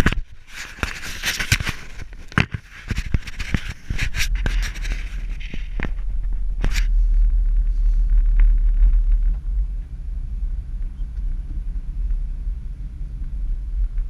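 Low rumble of a 1993 Chevrolet pickup truck driving on a snowy road. Crackling and scraping clicks run through the first six seconds, with a single sharp click about seven seconds in.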